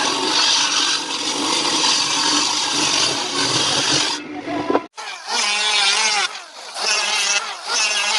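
Power tool working wood, a dense, steady noise that cuts off abruptly about five seconds in. After the cut comes a different sound of wavering pitched tones in repeated phrases.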